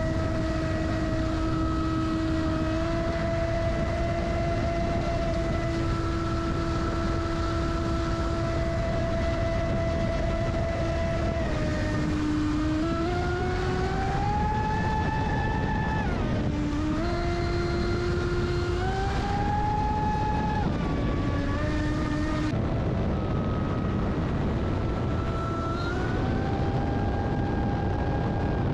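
Onboard sound of a Traxxas Spartan RC boat at high speed: the high-pitched whine of its 1600kv brushless motor over a constant rush of water. The whine holds steady for about the first ten seconds, then rises and falls several times with the throttle.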